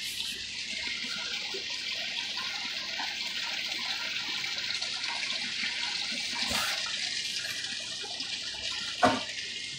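Steady hiss of water trickling and splashing through aquarium tank filtration, with a sharp knock about nine seconds in.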